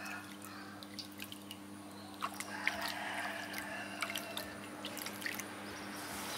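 Water dripping and splashing in a steel basin as a hand cups and trickles it over a small wet monkey's head. Scattered light drips and splashes, busier from about two seconds in.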